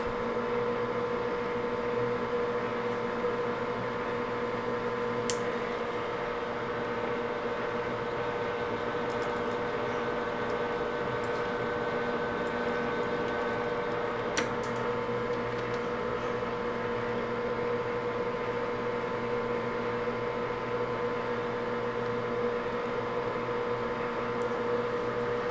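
Grizzly G4003 12x36 gearhead lathe running steadily under power during a thread-cutting pass, its gear train giving a steady hum with several fixed tones. Two short sharp clicks come about 5 seconds in and about 14 seconds in.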